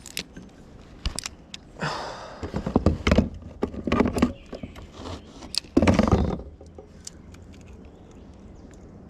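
A run of knocks, clicks and rattles from handling gear and a landed fish on a kayak, with short scuffling bursts about two, three, four and six seconds in, the last the loudest, then it goes still.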